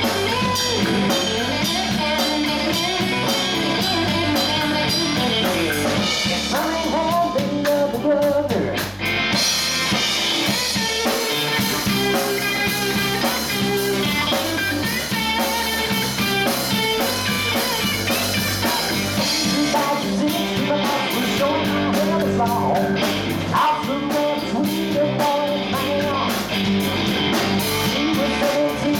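Live rock band playing: electric guitar, electric bass and drum kit. The cymbal strokes drop back for a stretch in the middle, then return.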